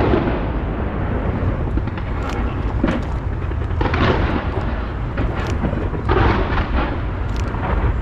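Fireworks display: a continuous deep rumble of bursting shells, with flurries of crackle every couple of seconds, around two, four and six seconds in.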